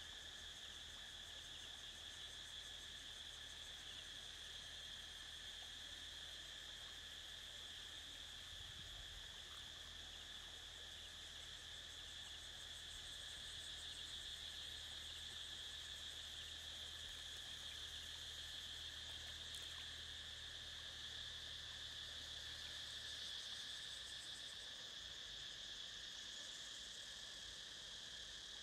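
Insect chorus from the riverside vegetation, a faint, steady, high-pitched drone that does not let up. A faint low hum runs underneath and stops near the end.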